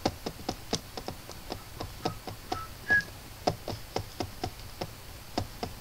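Irregular clicks and taps of typing on a computer keyboard, several a second, with a few short faint beeps about halfway through.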